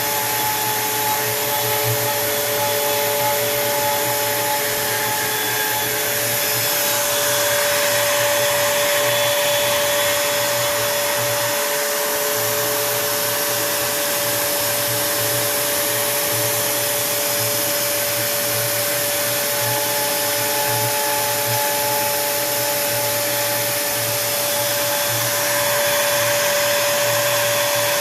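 Router spindle on a Onefinity Woodworker CNC machine running steadily while the bit cuts a sign into wood: a constant whine over a rushing noise that changes colour slightly every few seconds as the cut moves.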